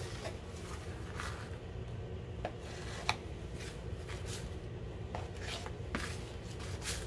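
Dough scraper scraping sticky dough off a granite countertop: scattered short scrapes and light ticks over a steady low hum.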